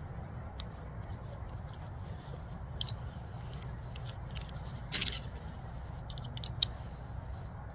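Dry twigs and tinder being handled to build and light a small fire: scattered crisp snaps and clicks, with a short scrape about five seconds in, over a steady low rumble.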